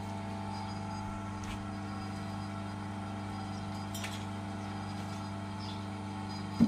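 A steady low electrical hum, like a mains-powered motor or transformer, with a couple of faint clicks. Right at the end comes one sharp thud as a slab of wet clay is set down on a metal mould box.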